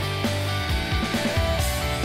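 Background music: a rock track with guitar and drums.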